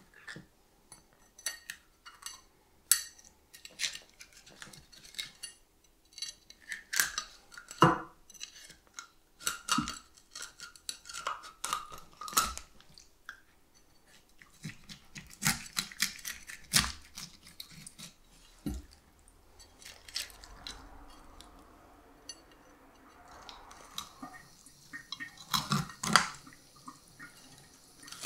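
Cutting the gills and guts out of a striped beakfish: a string of irregular crunching cuts, clicks and knocks of the blade and fish against the cutting board. A faint steady hiss sets in during the last several seconds.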